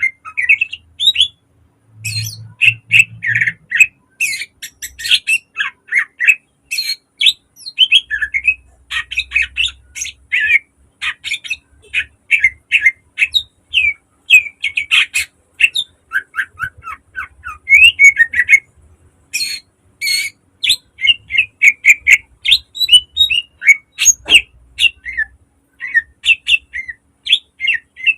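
Green leafbird (cucak ijo) singing a fast, tightly packed run of short sharp chirps and quick whistled notes, with a brief pause about two seconds in. The song is full of phrases mimicked from other birds.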